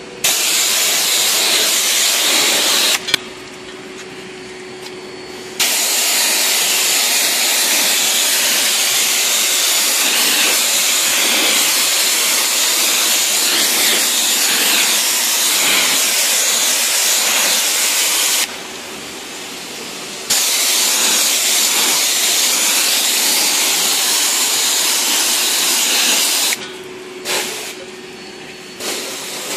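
High-pressure water spray from a car-wash wand hissing steadily against car bodywork. It stops three times for about two seconds, about 3 s in, about 19 s in and near the end, and a quieter low steady hum shows through in those gaps.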